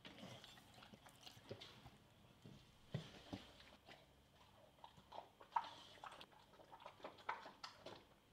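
A dog chewing a piece of watermelon and smacking its lips: faint, irregular wet clicks.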